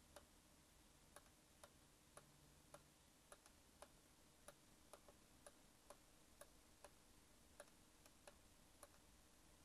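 Faint computer mouse clicks, about two a second and fairly evenly paced, against near silence.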